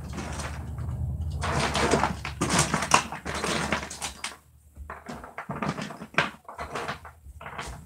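Small plastic toys clattering and rustling as they are rummaged through by hand. A quick run of clicks and taps is busiest over the first four seconds, with a low hum under it, then thins to scattered knocks.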